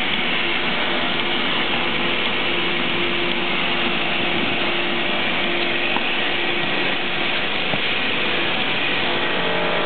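Production-line machinery running steadily: an even mechanical noise with a constant hum underneath.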